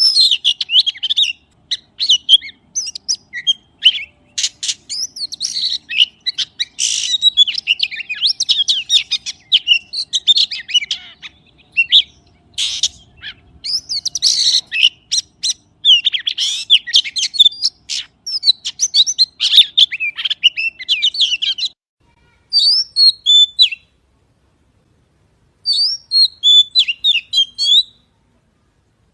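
A magpie singing a fast, varied run of whistles and chirps that breaks off about 22 seconds in, followed by two shorter bursts of song with silent pauses between them.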